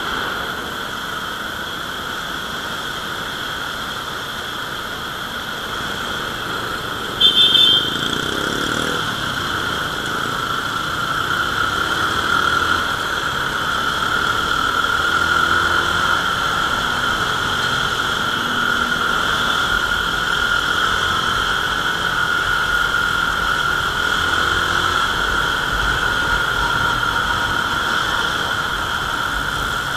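Motorcycle riding along a city road: a steady, loud running noise of engine and road, with a short loud sound about seven seconds in.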